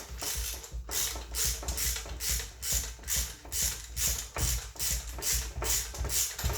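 Hand socket ratchet being worked back and forth on the strut, its pawl clicking in quick, even strokes, about three a second.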